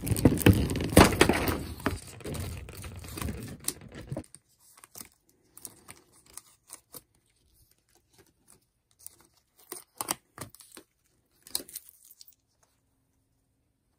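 Plastic packaging crinkling and tearing as a coloring book is worked free of its plastic tray for about four seconds. After that come scattered light taps and rustles of cardstock pieces being handled.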